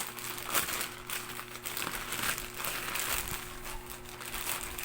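Parcel packaging crinkling and rustling in irregular bursts as it is handled and pulled at by hand to open it, over a faint steady hum.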